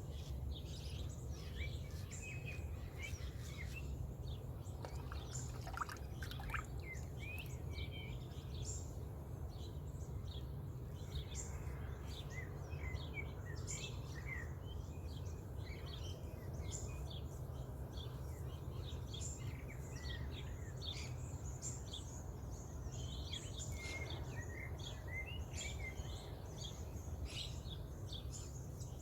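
Dawn bird song: many short chirps and trills from several birds throughout, over a steady low background rumble.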